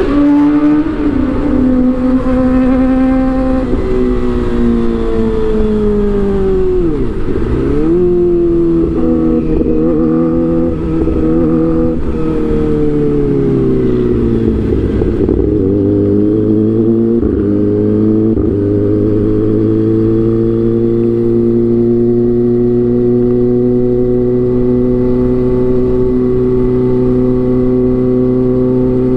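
Kawasaki ZX-25R's 250 cc inline-four running through an Arrow aftermarket exhaust. Its pitch dips and comes back up twice in the first half, then holds a steady, slowly rising note.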